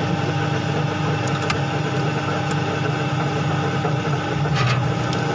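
Motor drive unit of an MR on-load tap changer running through a tap change: its electric motor and gear train whirring steadily, with a few light clicks.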